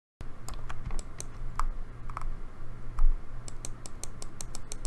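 Clicks of a computer mouse and keyboard during digital painting: scattered single clicks, then a quick run of about ten clicks near the end, with one dull thump about three seconds in over a faint low hum.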